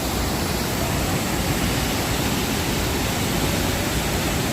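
Steady roar of the Iguaçu Falls, a dense even rush of falling water.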